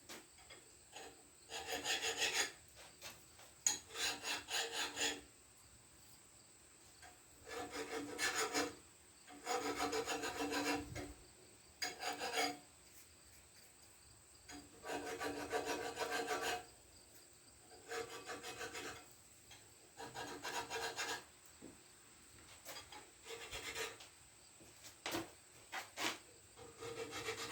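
Metal being filed by hand in short bursts of quick back-and-forth strokes with pauses between them, knocking down burrs raised around threaded mounting-screw holes.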